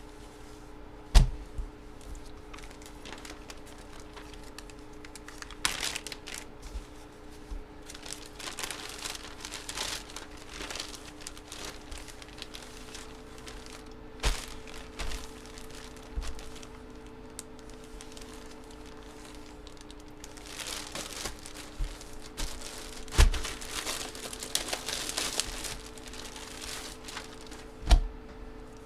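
Trading card pack wrappers and packaging crinkling and tearing as packs are opened and cards handled, in several spells of rustling with a few sharp knocks on the table.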